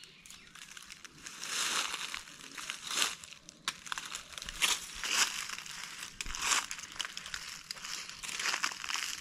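Footsteps crunching and crackling through a thick layer of dry fallen leaves, in an irregular run of crunches, with the metal detector's coil brushing through the leaf litter.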